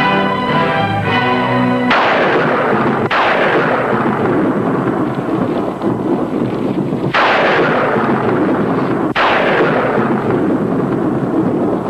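Orchestral music breaks off about two seconds in, giving way to a thunderstorm sound effect. Four sharp thunderclaps come, one about two seconds in, another a second later, and two more in the second half, each cracking and then rolling away.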